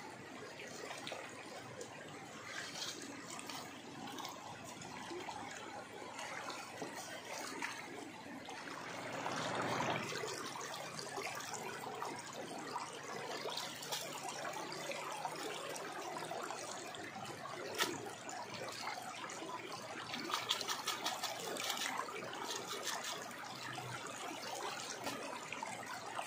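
Water sloshing, trickling and splashing as a gold pan is dipped and swirled in shallow river water, with a louder swell about a third of the way in and a few sharp splashes later on.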